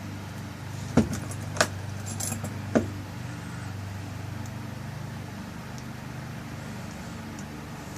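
Small metal clicks and clinks of a lock cylinder and its tail piece being handled as the tail piece is screwed on: four sharp clicks within the first three seconds. A steady low hum runs underneath.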